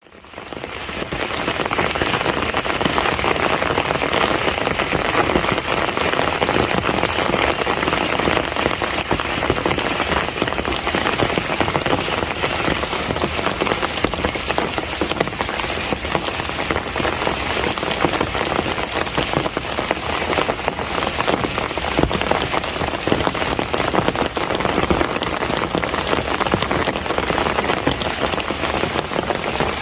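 Steady heavy monsoon rain, a dense hiss of drops with many small patters on surfaces, fading in over the first second.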